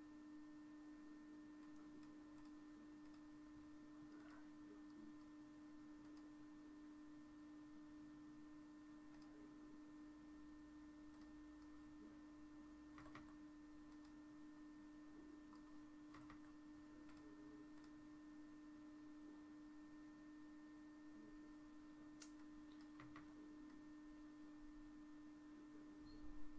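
Near silence: a faint, steady electrical hum, with a few faint clicks here and there.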